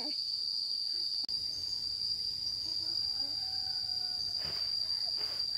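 Insects chirring in one steady, high-pitched drone that never pauses. A faint voice hums briefly midway, and two soft knocks come near the end.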